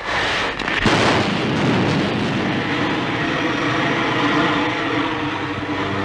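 Film sound effect of a rocket ship's engine starting with a sudden loud rush, then running as a steady noisy drone with a low hum beneath it.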